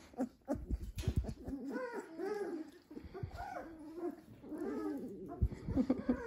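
Three-week-old Dalmatian puppy making a run of short, whiny grunts and squeaks while it mouths and chews on fingers, with a couple of soft low bumps.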